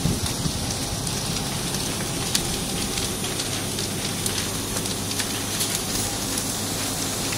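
Wooden rubbish shelter burning: a steady hiss of flames with many small crackles and pops, over a steady low hum.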